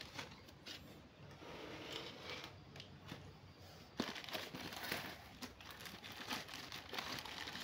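Plastic fish-transport bags crinkling as they are handled and pulled from a cardboard box: irregular rustles with scattered crackles, a sharper one about four seconds in.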